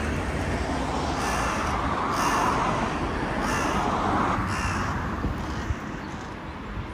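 Crow cawing from the treetops: about four short calls roughly a second apart, over a steady noisy rush.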